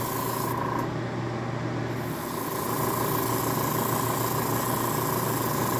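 Airbrush spraying water-thinned acrylic paint: a steady hiss of air with a funny-sounding steady tone over it. The spray stops about half a second in and starts again about two seconds in. The owner wonders whether the odd noise comes from thinning the paint with water.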